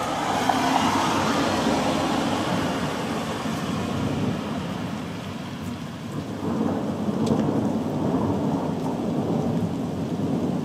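Continuous rolling thunder over falling rain. The rumble swells early, eases, and swells again a little past halfway.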